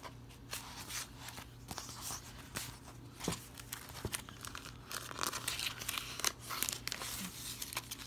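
Sticker sheets and sticker-book pages being handled and slid into place: a run of paper rustling and crinkling with small clicks, busiest in the second half.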